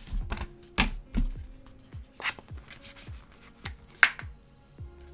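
Paper and thin cardboard being handled: the paperwork and sticker insert of an iPad box rubbing and sliding as it is lifted out, with a few sharp taps of cardboard knocking against the box, the loudest about four seconds in.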